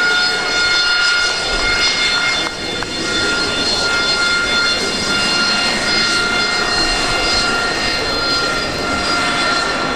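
Rolls-Royce Pegasus turbofan of an EAV-8B Harrier II Plus running at power: a loud, steady jet roar with several high whining tones held throughout.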